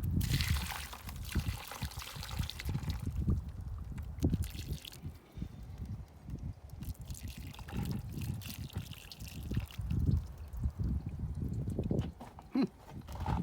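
Hot water poured from a pot over a corroded car battery terminal, splashing and dripping, strongest in the first three seconds and then trickling more faintly, with irregular low knocks throughout.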